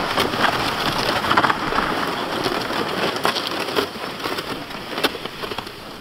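Snow crunching underfoot in a quick, irregular run of crunches, growing fainter near the end.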